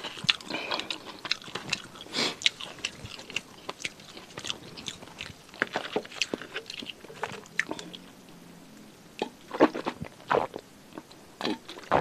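Close-up chewing of fried, pressure-cooked quail, with irregular crisp crunches and wet mouth clicks. A few louder clicks come near the end.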